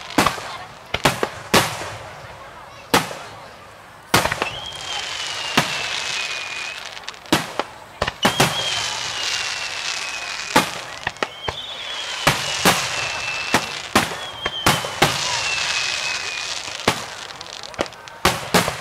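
Aerial firework shells going off in quick succession: many sharp bangs over a steady crackle. Four long whistles rise in, each sliding slowly down in pitch.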